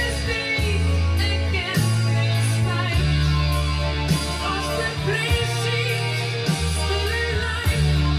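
Rock music with a stepping bass line, a steady drum beat and a singing voice, played back from a cassette on a Tandberg TCD 440A tape deck.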